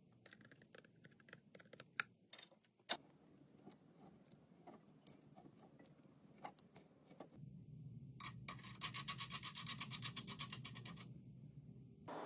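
Small metal parts handled and worked by hand: scattered light clicks and scrapes. Near the end comes a couple of seconds of fast, even scraping at about nine strokes a second.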